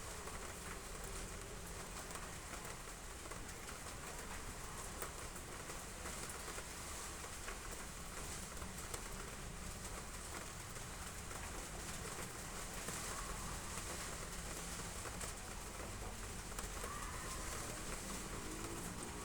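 Heavy rain falling steadily on roof tiles: an even hiss of many small drop ticks.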